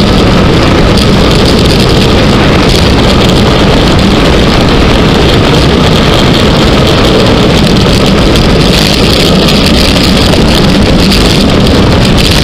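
Loud, steady rush of wind buffeting the microphone of a camera on a road bike descending at speed, mixed with tyre noise on the asphalt.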